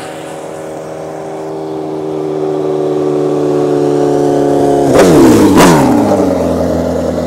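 Two inline-four sport bikes, a Suzuki GSX-R1000 and a Kawasaki ZX-14R, are racing flat out, their engine note growing louder as they close in. About five seconds in they scream past one right after the other, each pitch dropping sharply as it goes by.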